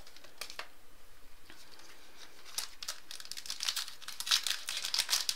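Baseball card pack wrapper being torn open and crinkled by hand: a run of short, crisp crackles that get busier in the second half.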